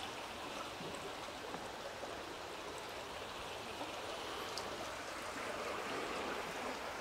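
Creek water flowing steadily: a faint, even rushing hiss.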